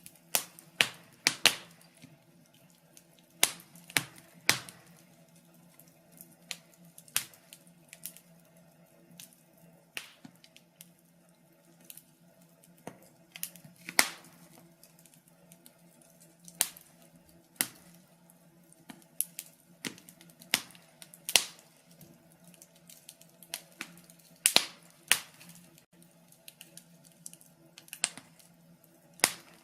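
Wood fire crackling in a fireplace: irregular sharp pops and snaps, a few each second, some much louder than others, over a faint low hum.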